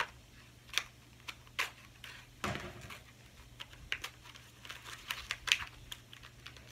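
Scissors snipping a small plastic package, then the plastic crinkling, followed by irregular small clicks and taps of little plastic toy pieces being handled.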